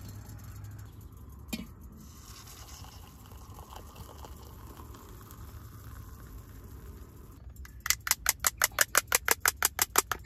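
Hot water poured quietly from a camping kettle into a ceramic mug, then a spoon stirring the drink briskly, clinking against the mug about seven times a second near the end.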